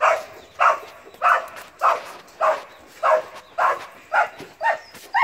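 A dog barking over and over at a cat it has chased up a tree: short barks of even loudness, about two a second.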